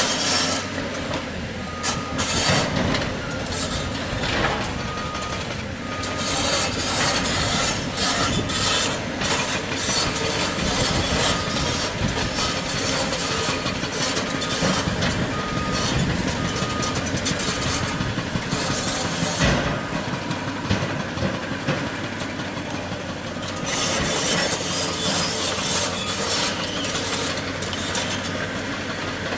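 Heavy diesel construction machinery working at a rock-breaking site: engines running under dense, irregular clattering and banging of rock. A repeating beep sounds about once a second for roughly the first twenty seconds.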